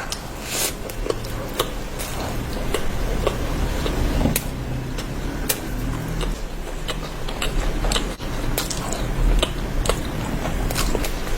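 Close-up eating sounds: wet chewing and squishing of rice and curry, with many irregular sharp clicks and taps.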